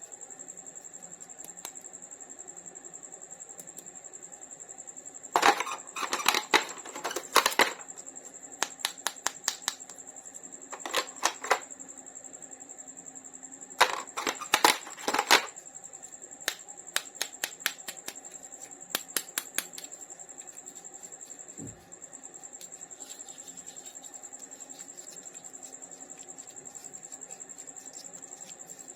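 Plastic toy figures and packaging clicking and rattling in quick bursts as they are handled, with scattered single ticks between. A faint steady high-pitched tone sits underneath.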